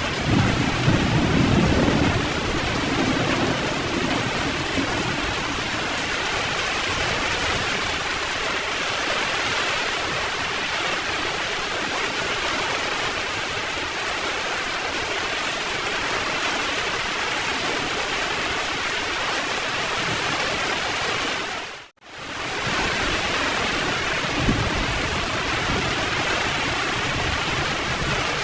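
Heavy rain pouring steadily, with a low rumble of thunder in the first few seconds. About three-quarters of the way through, the sound fades out for a moment and fades straight back in.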